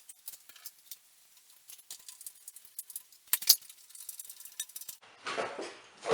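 Light metallic clinks and taps of tools and hardware while an electrical device box is mounted on a wooden stud. There are two sharp knocks about three and a half seconds in, and a louder knock near the end.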